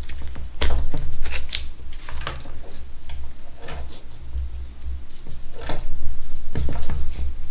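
Ice cream carton being handled and opened: an irregular run of short crackles and clicks, with dull thumps of handling underneath.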